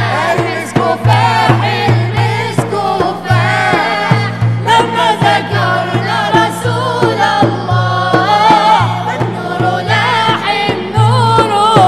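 Mixed choir of male and female voices singing an Arabic Islamic nasheed in praise of the Prophet, over a steady drum beat.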